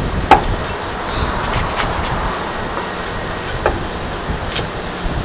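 A Chinese cleaver knocking down through crispy roast suckling pig skin onto a wooden chopping block: four separate chops, the loudest about a third of a second in. A steady low background rumble runs under them.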